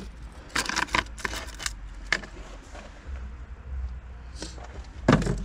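Handling noise: a quick run of clicks and scrapes about half a second in, another click around two seconds, and a louder thud near the end, over a steady low rumble.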